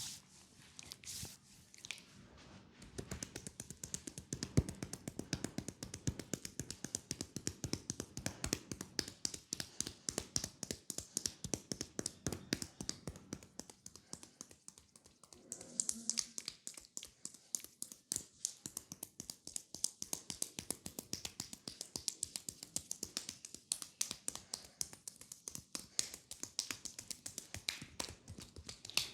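Hands tapping rapidly on a person's leg in a fast acupressure massage, a quick run of sharp taps. The taps are sparse at first and come thick and continuous from about three seconds in.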